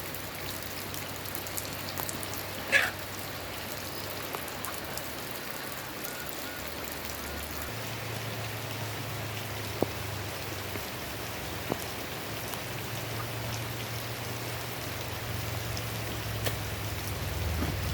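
Steady rain, with scattered drops tapping. There is one short, loud sound about three seconds in, and a low steady hum comes in partway through.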